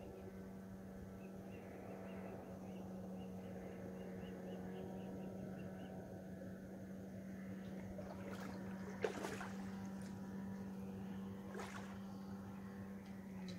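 Riverside outdoor ambience: a steady low hum, faint quick high ticking in the first half, and a few short sharp sounds in the second half, the sharpest about nine seconds in.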